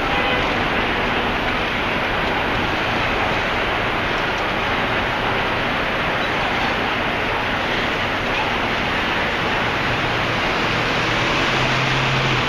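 Steady wash of city street traffic noise with wind buffeting the microphone. A low steady hum comes in near the end.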